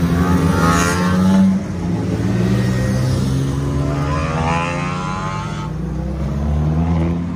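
Race cars driving past one after another down the pit lane, each engine revving up with a rising pitch as it accelerates close by, twice in succession, with another car's engine building near the end.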